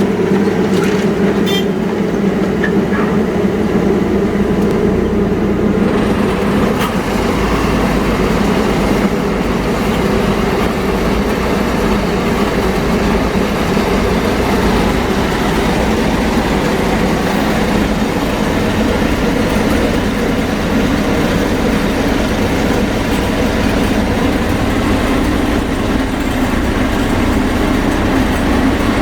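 Loud, steady mechanical rumble with a constant low drone, unchanging throughout, with a few faint clicks in the first couple of seconds.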